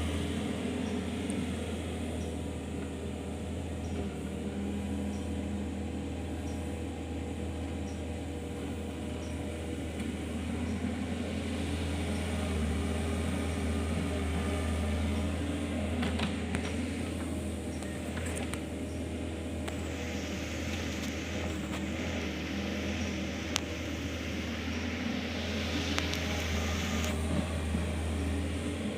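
Kobelco SK 50 P mini excavator's diesel engine running steadily under hydraulic work, with a low hum throughout. A few sharp knocks come in the second half.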